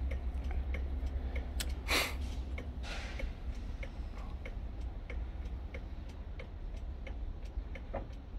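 Steady mechanical ticking, about three clicks a second, over a low hum, with a short loud hiss about two seconds in and a fainter one a second later.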